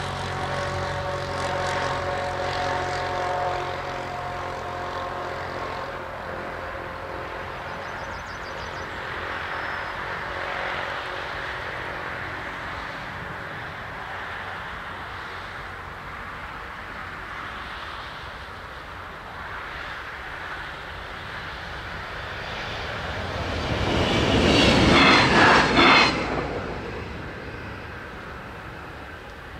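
A train rushes over the level crossing about 24 seconds in, its wheels clattering in quick regular beats, and the sound cuts off sharply as it clears. Before that, a droning engine-like tone fades away over the first few seconds.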